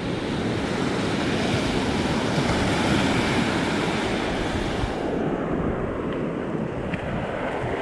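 Ocean surf washing in, a steady hiss that swells and then fades about five seconds in, with wind buffeting the microphone.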